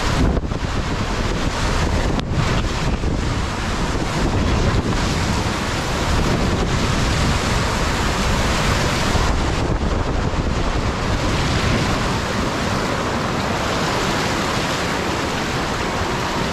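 Water rushing and spraying around a four-person raft as it rides down a ProSlide Tornado 60 funnel water slide, with heavy wind noise on the ride camera's microphone; a loud, steady rush.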